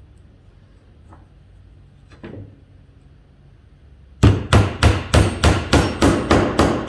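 Small hammer tapping a peg into a silicone-filled hole in a cedar birdhouse. It starts with a couple of faint clicks, then about four seconds in comes a quick, even run of sharp strikes, about three a second, driving the peg until it bottoms out.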